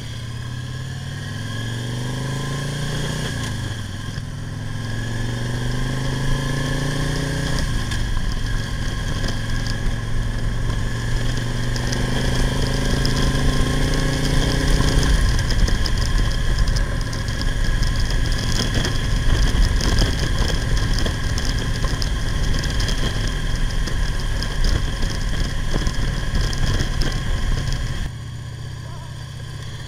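Victory V92C V-twin motorcycle engine accelerating through the gears: its pitch rises and drops twice at the upshifts, about 4 and 7.5 seconds in, then holds steady at cruising speed. From about halfway a rushing wind noise grows over it, and near the end the sound cuts suddenly to quieter riding.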